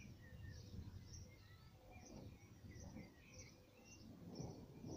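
Faint chirping of small birds, repeated short calls over a low outdoor rumble. Near the end a deeper rumble of thunder starts to build.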